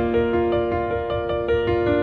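Background music: a quick run of repeated pitched notes over a steady low pulse.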